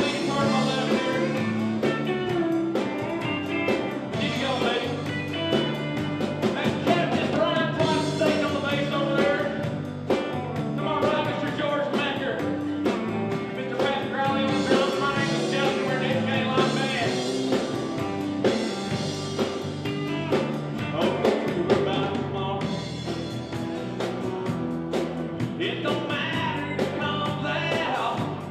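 Live country band playing a song on electric guitar, acoustic guitar, bass guitar and drum kit, with singing over it.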